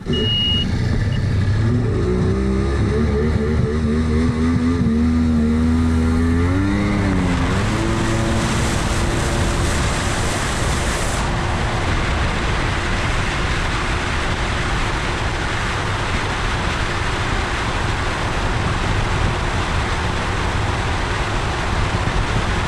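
Yamaha GP1200 jet ski's two-stroke triple engine running under throttle, its pitch climbing over the first several seconds. A steady rushing noise of the run at speed then drowns out the engine tone.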